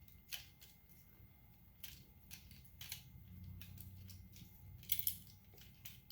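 Faint, scattered clicks and taps of small plastic parts being handled as the inside of a PS4 controller is lifted out of its shell, over a low hum.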